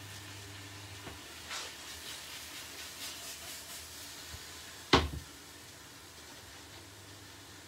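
A frying pan of beef braising steaks is lifted and moved over a glass induction hob with a low hiss from the pan, then set back down on the glass top with one sharp, loud knock about five seconds in.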